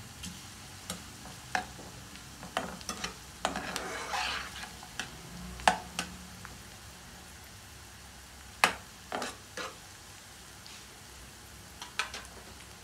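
Potato cubes and chopped onion sizzling steadily as they fry in a non-stick pan. A spatula stirs and scrapes through them, with sharp knocks of the spatula against the pan now and then.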